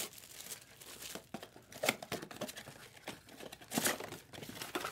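Foil trading-card packs and their cardboard box being handled, wrappers crinkling in irregular crackles, with sharper crackles about two seconds in and again near four seconds.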